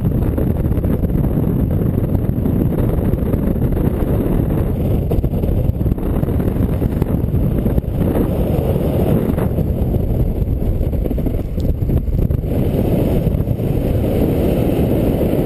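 Airflow of a paraglider in flight buffeting the camera's microphone: a loud, steady, low rush of wind noise.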